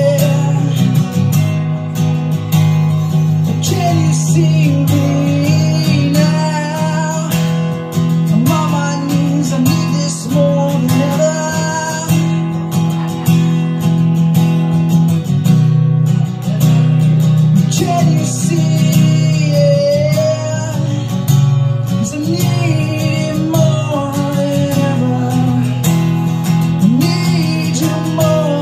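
Man singing while strumming a steel-string acoustic guitar, a solo live performance of a song.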